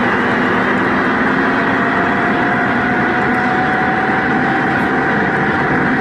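Steady on-board road noise of a motor vehicle under way: wind rush and engine drone at a constant, loud level.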